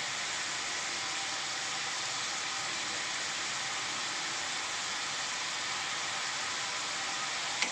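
Shallots and tomatoes frying in sesame oil in an aluminium pressure cooker, giving a steady, even sizzle. A single sharp click sounds near the end.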